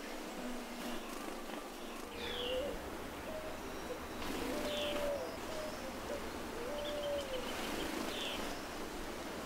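Forest birds calling: about five short, low whistled hoots, some bending slightly in pitch, mixed with a few thin falling high notes and a brief rapid series of high notes near the end.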